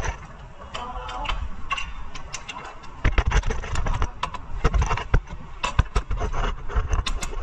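Sharp clicks and metallic knocks of tools at work on a vehicle's suspension. They come in quick, uneven succession and grow denser and louder from about three seconds in, over a low rumble.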